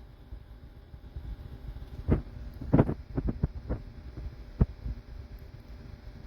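Cool mist humidifier running on high: a low steady hum, with a handful of short knocks clustered around the middle.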